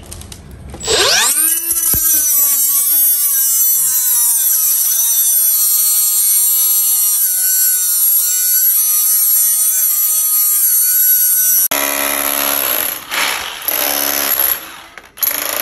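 A small cordless angle grinder spins up with a rising whine about a second in, then runs steadily while cutting into a concrete wall, its pitch sagging briefly under load. About three-quarters of the way through, a rotary hammer takes over with a harsher, pulsing chiselling noise as it breaks out the concrete.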